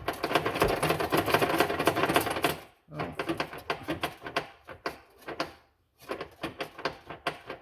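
Metal rattling and clicking from a fish wire and bolt being worked inside a vehicle's frame rail, where the bolt is stuck. It starts as a fast, continuous rattle, then breaks into scattered clicks.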